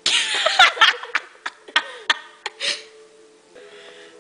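A girl laughing: a loud breathy burst of giggling at the start, then a string of short snickers that fade out.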